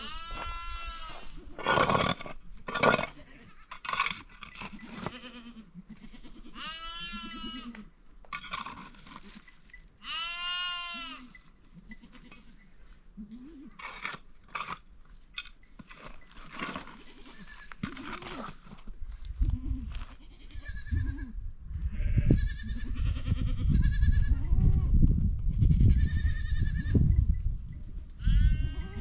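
Goats bleating again and again, many separate calls overlapping one another. From about two-thirds of the way in a loud low rumble sits under them.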